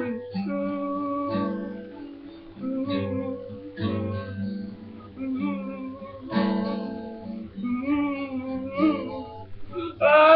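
Guitar in an unconventional, non-standard tuning, strummed and picked in chords and single notes. A voice comes in singing near the end.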